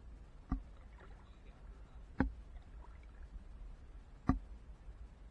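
Three sharp knocks, about two seconds apart, over a faint low rumble.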